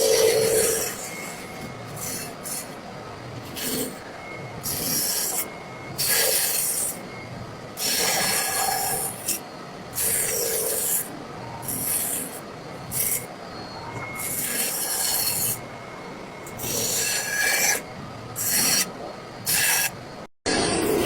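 A hand carving tool scraping and cutting into wood in repeated strokes, each a short rasping hiss, with pauses between them.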